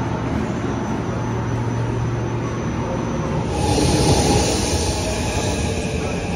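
Metro trains running past a station platform: a steady rumble with a low hum, swelling about three and a half seconds in into a louder rush with hiss as a train moves by close to the platform.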